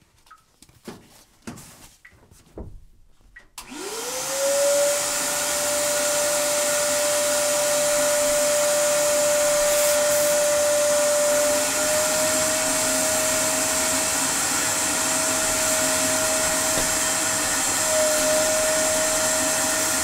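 A few soft handling knocks, then about three and a half seconds in a wet/dry shop vacuum switches on. Its motor whine rises quickly to a steady pitch and it runs steadily, sucking sediment from the bottom of an electric water heater tank through a small vinyl tube.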